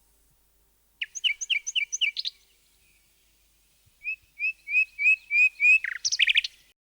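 Bird chirping sound effect: a quick run of about six short chirps, then after a pause of under two seconds a string of about seven rising chirps that ends in a fast flurry of notes.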